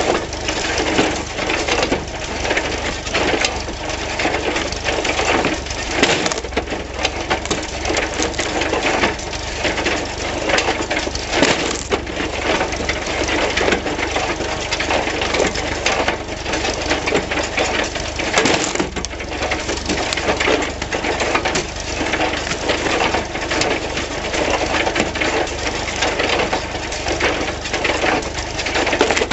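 John Deere 14T hay baler converted to a wood splitter, running and splitting firewood: a continuous loud clatter of cracking and crushing wood over a steady low hum from the machine's drive.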